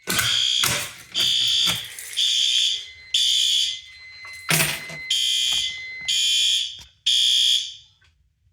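Fire alarm horns sounding in pulses, about one blast a second. This is the panel's alarm signal, set off from a manual pull station. There are clicks and knocks in the first seconds and a loud knock about halfway through, and the horns stop near the end when the alarm is silenced.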